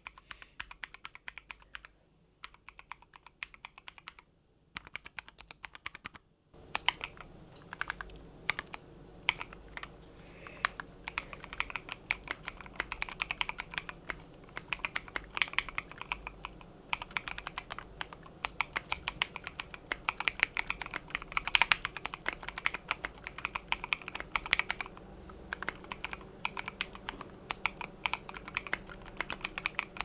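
D60 custom 60% HHKB-layout mechanical keyboard with an FR4 plate, lubed and filmed C3 x TKC Dragonfruit tactile switches and ABS keycaps, being typed on. For the first six seconds or so the keystrokes come in short runs with brief pauses. From there on the typing is fast and continuous.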